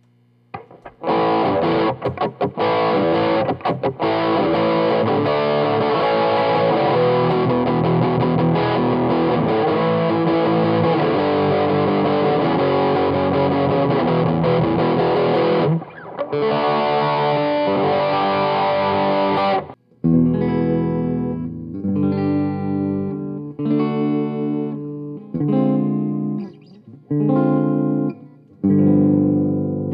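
Electric guitar played through an amplifier with distortion: continuous riffing for about the first twenty seconds, which stops abruptly. After that, single chords are struck one at a time and left to ring out.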